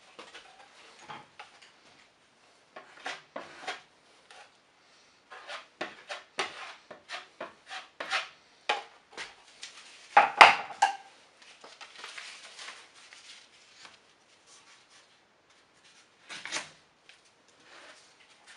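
Metal drywall taping knife scraping and clicking as joint compound is loaded and worked, then spread onto the drywall around a patch, in short irregular strokes. The loudest scrape comes about ten seconds in.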